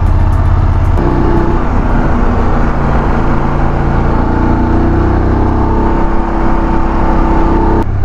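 Motorcycle engine running at a steady road speed, with wind and road noise. The engine note shifts about a second in and then holds steady.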